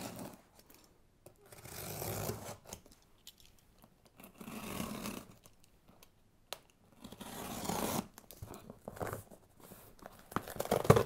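Cardboard shipping box being torn open: four rough stretches of tearing and rustling, a second or so each, with quiet gaps between them and one sharp click a little past the middle.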